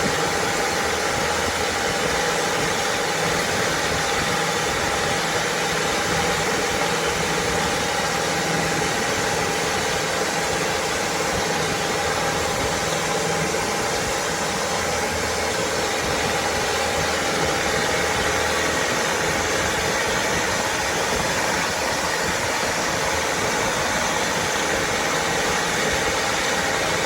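Boat engine running at a steady pitch under a constant rushing noise, with no change in speed.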